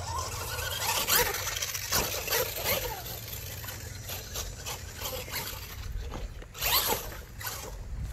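Radio-controlled monster truck being driven hard: its motor whines up and down in pitch with the throttle while the tyres scrabble and scrape over the ground, with a louder scraping burst about two thirds of the way in. The rear diff is locked almost solid, so the truck hops and scrubs its tyres.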